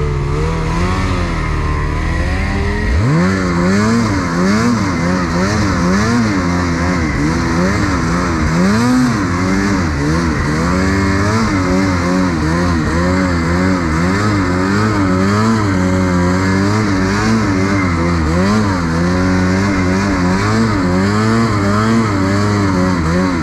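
Ski-Doo 850 two-stroke snowmobile engine revving hard under a constantly changing throttle. It climbs sharply about three seconds in, then its pitch keeps rising and falling every second or so.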